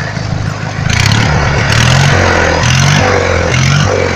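Riding lawnmower's engine running under way. It gets louder about a second in, with a few short rising sweeps in pitch roughly a second apart.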